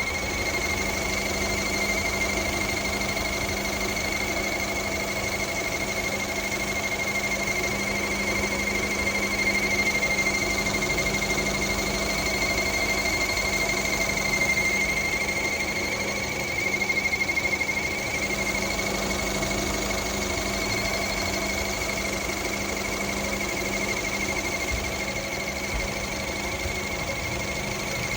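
Fiat Egea 1.4 engine running at a steady idle with a constant high-pitched whine over the running, an unexplained noise that the dealer could not trace.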